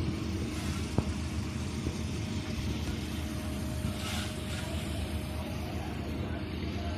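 A small minivan driving past on wet paving, its tyre hiss swelling about four seconds in, over a steady low outdoor rumble with a faint steady hum.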